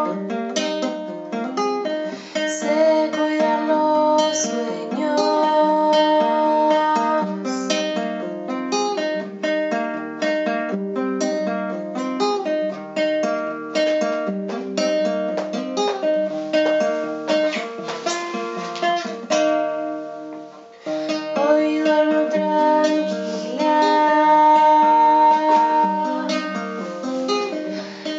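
Acoustic folk song played on plucked strings, with a brief dip in level about twenty seconds in.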